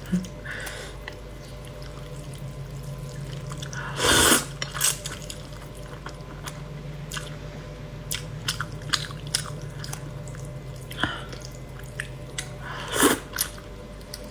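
Close-up eating sounds of cold noodles: wet mouth clicks and chewing, with two louder slurps of noodles, one about four seconds in and one near the end.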